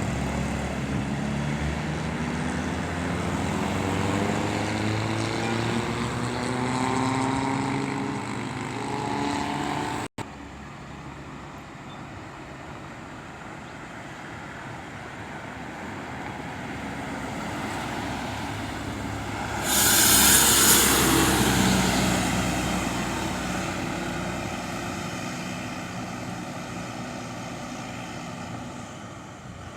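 Bus engines running: an engine rising in pitch as it accelerates, cut off abruptly about a third of the way in, then another bus running, with a sudden loud hiss lasting a couple of seconds about two-thirds of the way through.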